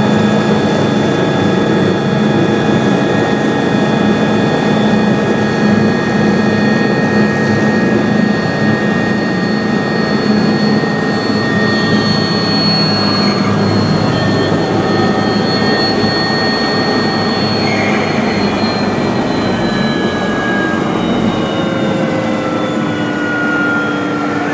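Helicopter turbine engine and rotor heard from inside the cabin: a steady whine over the running rotor. Through the second half the whine falls in pitch as the helicopter sets down on the helipad.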